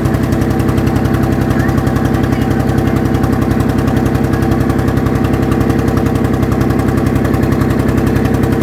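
Boat engine running steadily at constant speed, with a fast, even pulse.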